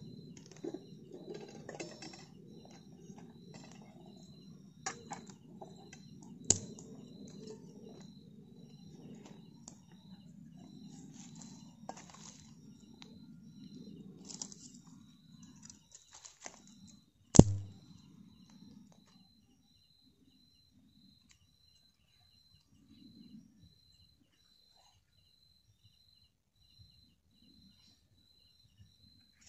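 Small campfire of dry leaves and twigs crackling, with scattered snaps. A sharp snap comes about six seconds in, and the loudest one about seventeen seconds in, after which it goes nearly quiet. Throughout, an insect chirps faintly and evenly, about one and a half times a second.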